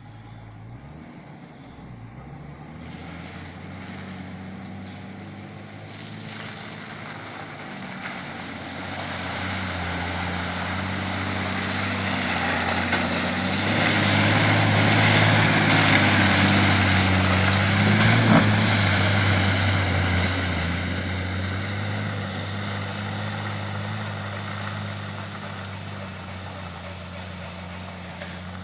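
A Nissan Patrol 4x4's engine running under load as it ploughs through deep mud and puddles, its tyres churning and splashing. The sound grows louder as it approaches, is loudest as it passes about halfway through, then fades as it drives away.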